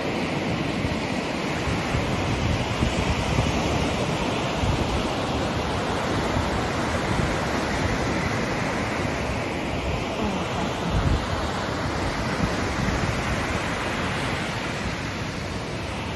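Ocean surf breaking and washing up in the shallows in a steady rush, with wind buffeting the microphone.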